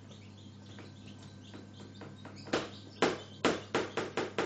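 Teaspoon stirring thick homemade mustard paste in a small jar: soft scraping at first, then from about halfway a quick run of about seven sharp knocks of the spoon against the jar.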